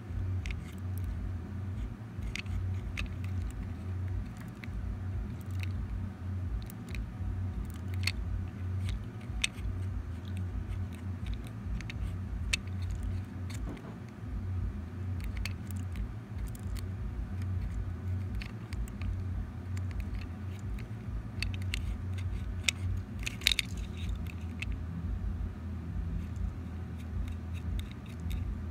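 Handheld plastic water ring-toss toy being handled: scattered small plastic clicks and taps over a steady low rumble, with a quick run of clicks about 23 seconds in.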